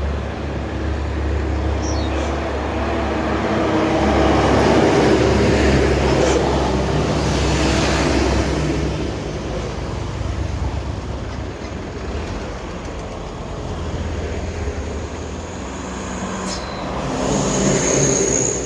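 Heavy diesel engines of intercity buses labouring up a hill past the roadside. A low steady drone swells as one vehicle passes about five seconds in and again near the end, where a thin high squeal sounds briefly.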